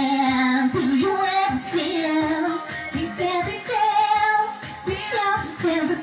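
A woman singing a pop song into a handheld microphone, with held notes that slide between pitches, over a backing track with a steady beat.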